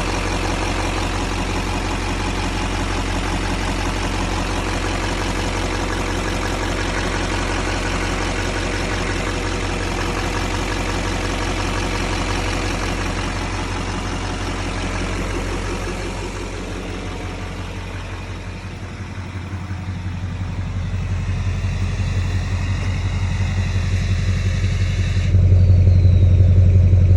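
2007 LBZ Duramax 6.6-litre V8 turbodiesel running with a steady diesel clatter. About two-thirds through it gets quieter, then builds back up, and near the end the sound abruptly turns louder and deeper.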